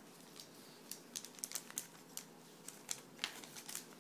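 Hockey trading cards and sealed foil card packs being handled on a table: scattered light crinkles and clicks, starting about a second in.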